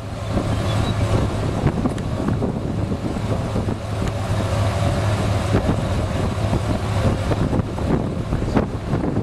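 Strong wind buffeting the microphone in gusts, over a steady low hum.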